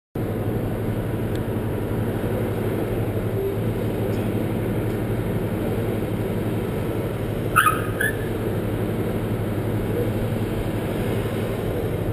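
Steady traffic noise with a constant low engine hum from cars idling and moving slowly through the checkpoint. Two short high chirps come about seven and a half seconds in.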